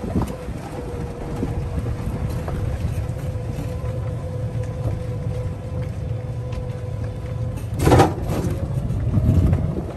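A golf cart driving, with steady tyre and chassis rumble and a thin, steady motor whine that dips slightly in pitch at the start and climbs near the end as the cart speeds up. There is a brief loud knock or rattle about eight seconds in.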